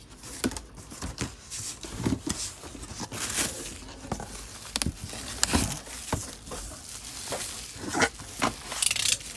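Packaging being handled: plastic sheeting and bubble wrap crinkling and cardboard rubbing, in irregular rustles with small knocks.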